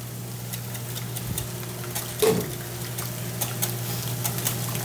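Wire whisk beating eggs and cream in a glass bowl, with many light clicks of the whisk against the glass, over a steady low hum. A brief voice sound about two seconds in.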